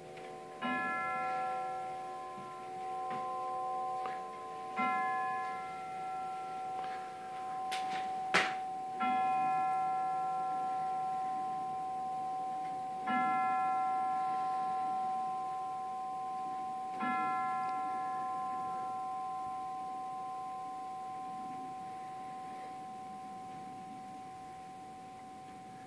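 Herschede Model 250 grandfather clock striking the hour on its chime tubes. A tubular bell is struck about every four seconds, each stroke ringing on and fading, and the last stroke is left to ring out slowly. A sharp click sounds a little over eight seconds in.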